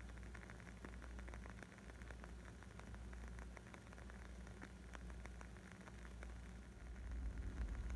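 Burning wood crackling with many small, irregular pops over a low rumble. The rumble swells near the end.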